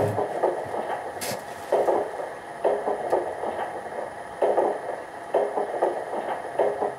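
Piko G-scale model steam locomotive (class 80) standing with its sound playing: short puffing pulses roughly once a second at uneven spacing, with one sharp click about a second in.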